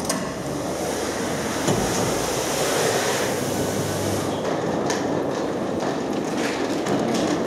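Wheeled suitcases rolling over a tiled floor: a steady rattling rumble with a few light knocks.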